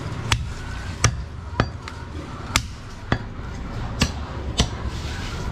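A large butcher's chopping knife striking a goat leg on a wooden chopping block: seven sharp chops, unevenly spaced, about one or two a second.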